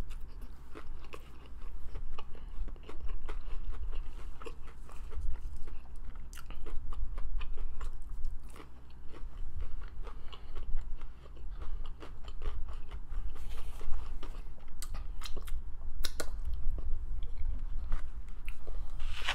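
Close-miked eating of crunchy fried food: repeated biting, crunching and chewing, a steady run of small mouth clicks and crunches, with one louder crunch near the end.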